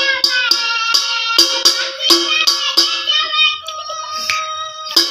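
Music with a steady, fast beat under a melody. The beat drops out about three seconds in and comes back just at the end.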